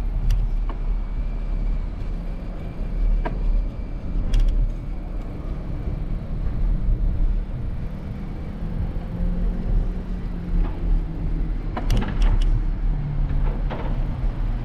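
City street traffic heard from a moving bicycle, under a steady low rumble, with a passing motor vehicle's hum partway through. Several sharp clicks or knocks come near the end.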